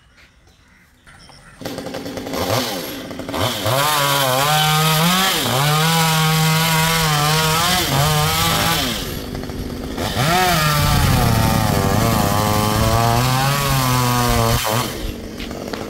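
Two-stroke Stihl chainsaw engine starting up about a second and a half in, then revving up and running at high speed. Its pitch dips and climbs back a couple of times, and it drops off near the end.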